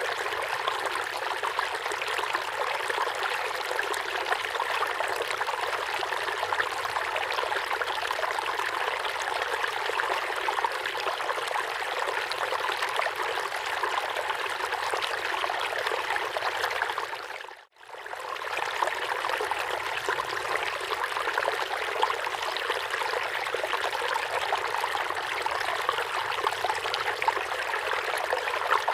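River water flowing and babbling over stones, a steady rushing stream. About two-thirds of the way in it fades briefly to silence and straight back in.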